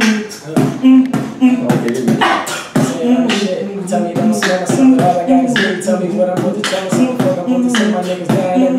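Beatboxing: a rhythmic run of mouth-made kick, click and snare sounds over a hummed bassline, laid down as a beat to rap over. A higher hummed line joins about four seconds in.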